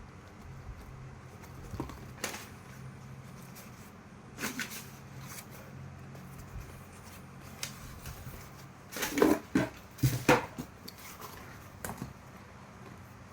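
Handling noises from a sneaker and its packaging: scattered knocks and rustles, with a cluster of several sharper knocks about nine to ten seconds in, over a low steady hum.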